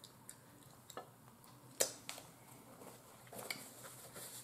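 Quiet eating sounds from someone eating with her hands: a few soft clicks and smacks, one sharper click just under two seconds in, then a brief napkin rustle near the end as she wipes her mouth.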